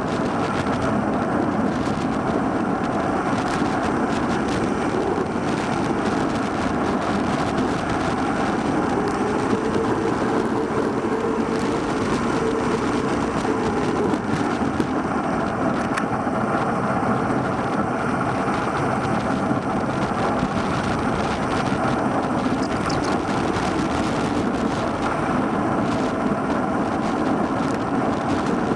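Steady rush of wind over a handlebar-mounted Cycliq Fly 12 bike camera's microphone, mixed with tyre and road noise from a road bicycle riding at speed.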